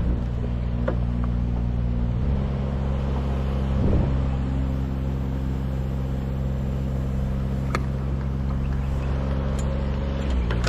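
A motor engine running steadily at a low speed. Its note steps to a slightly different speed about two seconds in and returns near the end, with a few faint knocks over it.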